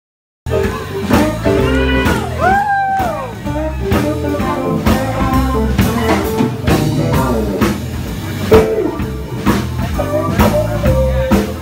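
Live blues band playing: electric guitar over bass and drum kit, with a note bending up and back down about two seconds in. The music cuts in abruptly half a second in.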